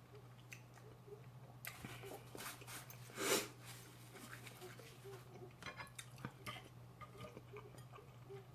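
Faint eating sounds: soft clicks of utensils and dishes and chewing, with one louder brief noise about three seconds in.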